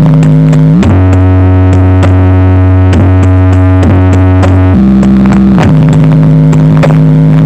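Synth-heavy sound-check music played very loud through a sound system's new speaker boxes: long held bass notes that slide up about a second in and slide down near the end, with a light percussive tick over them.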